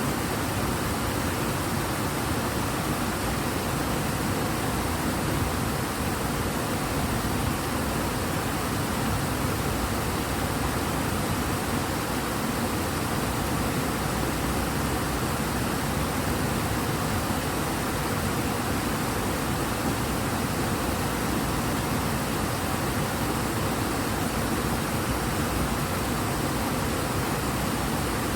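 River water rushing strongly in a full, fast current, a steady dense roar of flowing water.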